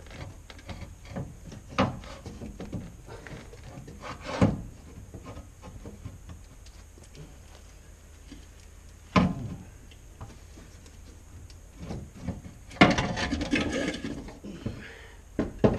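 Loose alternator being worked up and out of a Ford Transit 2.2 TDCi engine bay: single knocks and scrapes every few seconds as its metal casing bumps against the engine and brackets, then a longer run of clattering about 13 seconds in.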